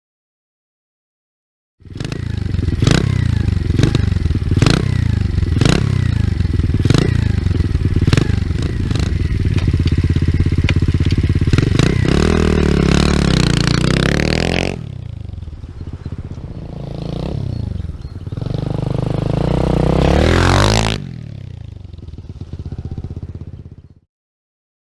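Stomp Superstomp 120R pit bike's stock single-cylinder four-stroke engine running hard and revving, with rapid clattering knocks over its first half. It then drops quieter, the revs rising and falling, with one strong climb in revs shortly before it cuts off.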